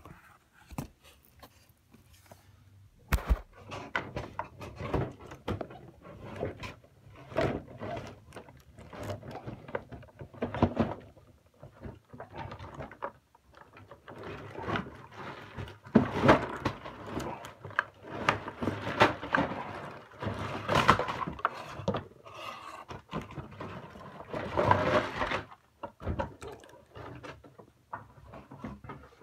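Handling noise: irregular knocks, clicks and rustling as plastic toy train-set pieces and their packaging are moved about and set down.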